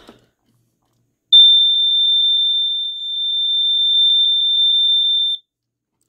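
Sears Early One 246.57313 smoke detector (BRK-built) sounding its alarm on test through its beige piezoelectric horn: one really high-pitched tone with a really, really fast pulse. It starts about a second in and cuts off suddenly about four seconds later.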